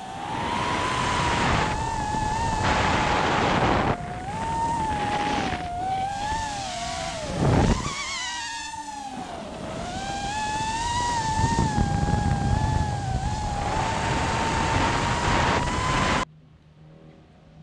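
High propeller whine of an FPV drone, wavering up and down in pitch as it chases a rally car at speed, over a rush of wind and the car's engine. A sharp swoop in pitch comes about seven and a half seconds in. The sound cuts off abruptly about sixteen seconds in, leaving a fainter car engine.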